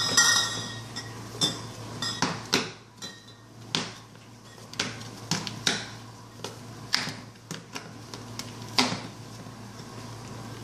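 Glass beer bottles clinking and knocking together inside a cardboard beer case as a cat paws and bites at them through the handle hole, in irregular sharp knocks, the loudest at the very start.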